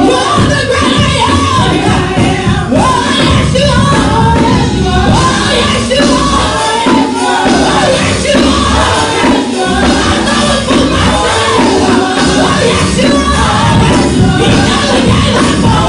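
Live gospel praise music: a church band playing loudly with a singing congregation and choir, voices rising and bending over a steady dense low end.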